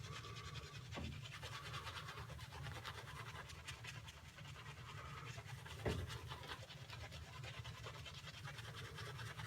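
Plisson synthetic-knot shaving brush scrubbing soap on a face: a fast, even swishing of damp bristles against skin. Water is being worked into a dry tallow-soap paste to build a lather.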